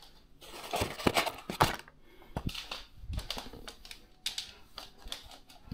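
Irregular light clicks and knocks with some rustling: takeaway food packaging, bags and containers, being handled and unpacked.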